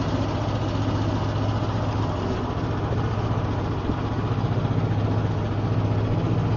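A boat engine running steadily at a constant speed, with a rapid, even firing pulse and a strong low hum.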